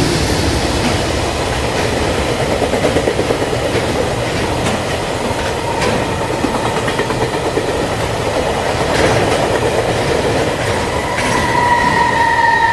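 Sound of a freight train rolling past: a steady rumble with wheels clicking over rail joints. A steady high-pitched tone joins near the end.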